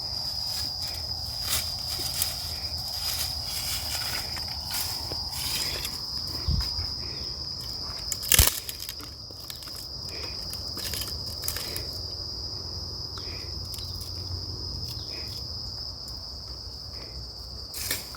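Insects calling in a steady, high-pitched drone, with irregular footsteps on the trail. A single sharp knock about eight seconds in is the loudest sound.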